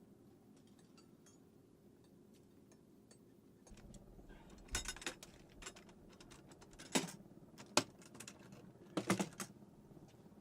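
Sharp clicks and clanks of metal handling over a faint steady hum, scattered at first, then a cluster of louder clanks starting about four seconds in.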